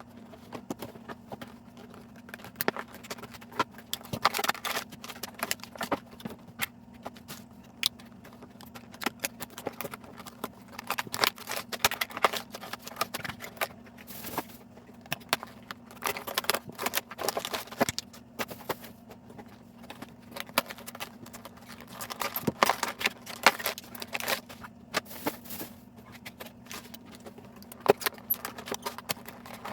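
Plastic toy packaging being handled and pulled open, with irregular crinkling and sharp clicks throughout, over a steady low hum.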